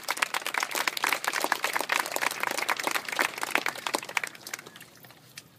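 Crowd of schoolchildren applauding: many hands clapping densely, then thinning out and stopping near the end.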